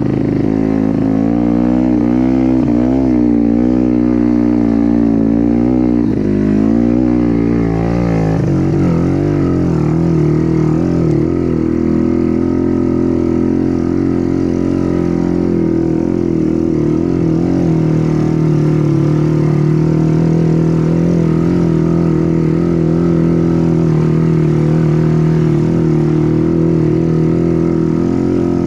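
Motorcycle engine running continuously. For the first several seconds its pitch rises and falls with the throttle, then it settles to a steadier speed.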